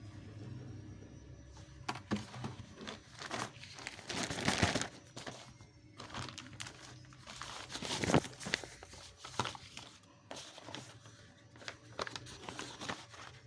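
Packaging crinkling and rustling as it is handled and opened, in irregular bursts, loudest about four and a half seconds in and again about eight seconds in.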